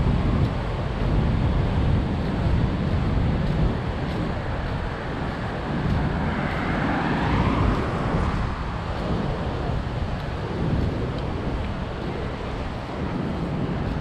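Road traffic passing on a city avenue, with wind rumbling on the microphone throughout. A passing vehicle's hiss swells and fades about halfway through.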